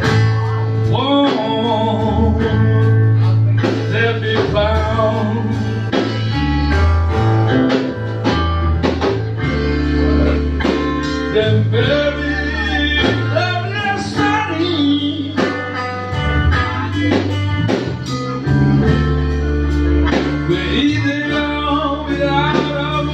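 Live blues band playing: guitar, bass and drums, with a lead line of bending notes over a walking bass.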